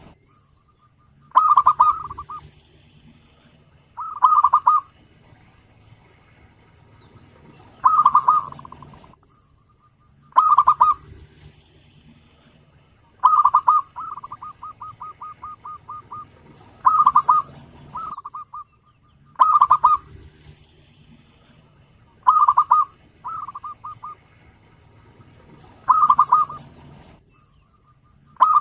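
Zebra dove (perkutut) singing its cooing phrase over and over, a short burst of rapid notes about every two and a half to three seconds, ten times in all. A few of the phrases trail off into a quick run of short, evenly spaced notes.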